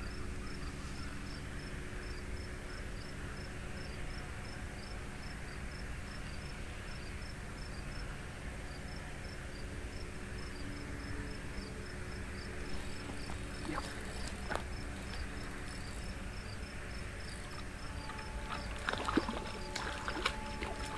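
Crickets chirping steadily in a regular high-pitched pulse over a low background hiss. A few sharp clicks and knocks come near the end.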